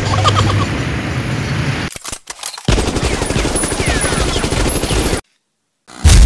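Rapid crackling like automatic gunfire, in two stretches with a brief gap about two seconds in. It cuts off suddenly near the end.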